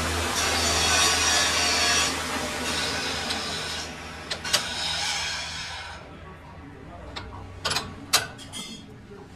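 Lathe chuck being tightened on a large cast-iron V-belt pulley: a few sharp metallic clinks of the chuck key, two about halfway through and two more near the end. Under them a steady machine hum and hiss fades away about six seconds in.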